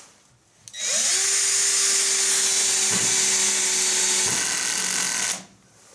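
AEG BS14 G3 Li cordless drill-driver whirring as it drives a 50 mm wood screw into a timber beam on torque-clutch setting five. The motor starts about a second in, rising briefly to a steady whine, and stops near the end.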